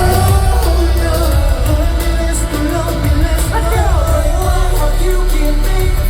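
A K-pop song performed live: singing over loud amplified pop music with a heavy bass.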